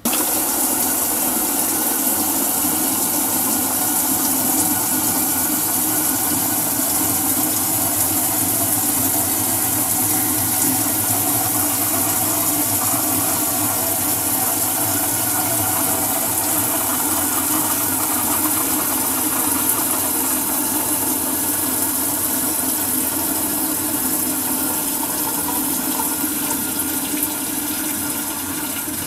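Toilet flushing: water starts rushing all at once and keeps running as a loud, steady hiss, easing slightly near the end.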